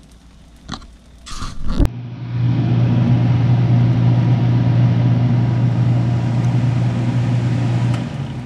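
Steady hum of an electric fan motor with a rush of air. It starts abruptly about two seconds in, after a few clicks and handling knocks, and fades near the end.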